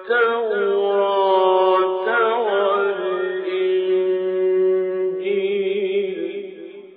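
A male Quran reciter's voice in melodic mujawwad recitation, drawing out one long phrase on a steady pitch with a wavering ornament partway through, then fading out near the end.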